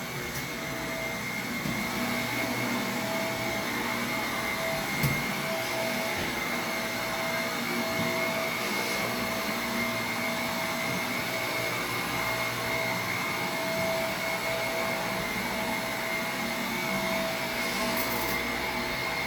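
Vacuum cleaner running steadily, a constant hiss with a high whine, with one sharp click about five seconds in.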